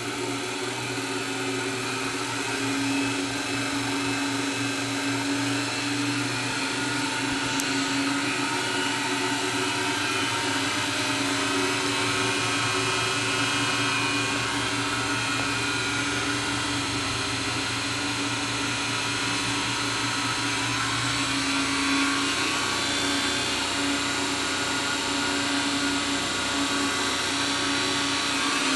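Motor-driven experimental generator whirring as it is brought up to speed toward about 2200 RPM: a steady, machine whine of several tones that grows a little louder over the first few seconds and then holds.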